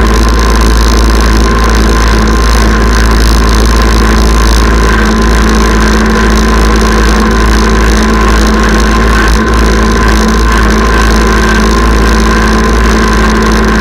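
Kubota tractor's diesel engine running loud and steady while pulling a chain harrow across a field.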